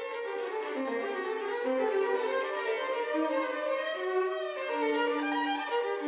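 Solo violin playing a melody of held notes, often two notes at once.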